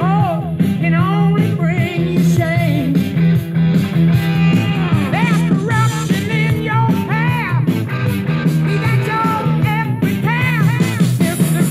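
A song with a sung vocal over a steady band, played back from a prerecorded cassette on a Nakamichi CR-1A two-head cassette deck.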